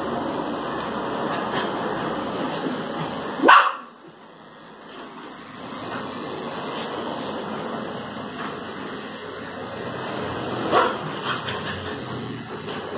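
Electric dog-grooming clippers running with a steady hum. A dog gives a sharp, loud bark about three and a half seconds in, the clippers go quiet for a couple of seconds, and a smaller bark follows near eleven seconds.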